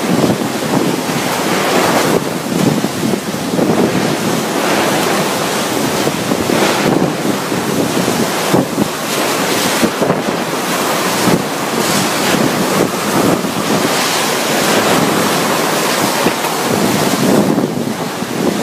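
Typhoon-force wind blowing in strong gusts, with driving rain, buffeting the microphone. It is a dense, loud rush that keeps swelling and easing.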